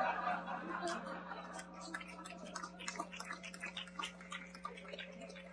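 Small club audience laughing, the laughter dying away over the first second or so, followed by scattered, irregular clapping. A steady electrical hum runs underneath.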